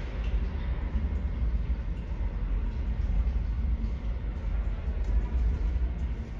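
Low, steady rumble of an R68 subway train moving away down the tunnel.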